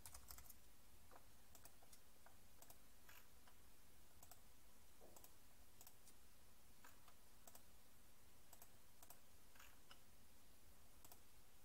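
Near silence with faint, irregular clicks of a computer mouse and keyboard being used.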